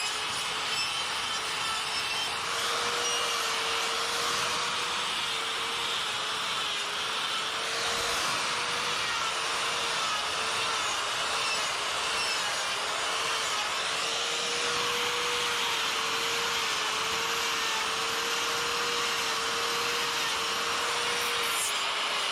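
Die grinder with a flame burr running with a steady high whine whose pitch wavers slightly as it loads up, cutting grooves into wood with a continuous gritty hiss.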